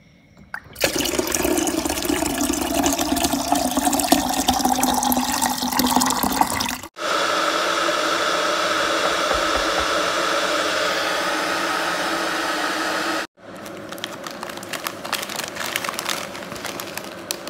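Tap water pouring into a plastic electric kettle, a pitch in the splashing rising slowly as the kettle fills. About seven seconds in this gives way to a steady rushing hiss of the electric kettle heating water on its base, and about thirteen seconds in to quieter crinkling of plastic instant-noodle packets being handled.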